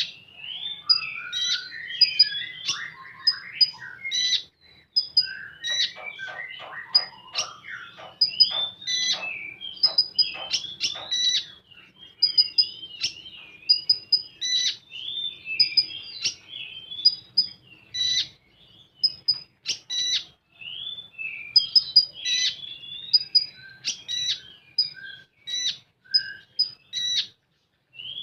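Konin songbird singing without pause: rapid high chirps and twisting warbled phrases, with a fast rattling run of notes about six seconds in.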